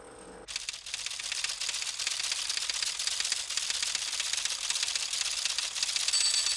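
Machine typing at high speed: a teleprinter-style printer clattering out text in a dense, unbroken stream of rapid clicks that starts about half a second in.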